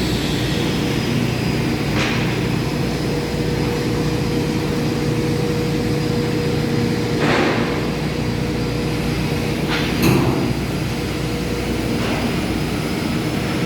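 Steady machinery drone with a few held tones, broken by a few sharp knocks about two, seven and ten seconds in.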